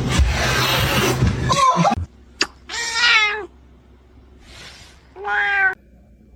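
A domestic cat meowing twice: a longer meow falling slightly in pitch, then a shorter, steadier one. These follow a loud, noisy passage of about two seconds at the start.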